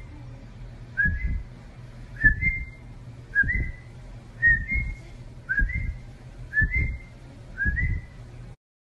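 A person whistling a short rising whistle over and over, about once a second, seven times, with a low thump under each whistle. The whistles are calling to a German Shepherd puppy, which tilts its head at them.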